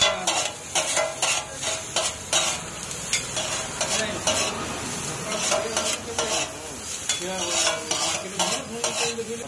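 Two metal spatulas scraping and clanking on a large flat griddle in quick repeated strokes, about two to three a second, as noodles and egg are stir-fried, with frying sizzle underneath.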